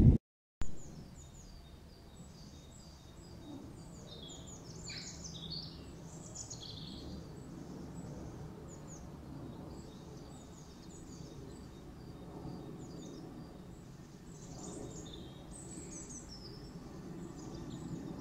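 Small songbirds chirping and singing in quick short phrases, busiest twice, over a faint low outdoor rumble.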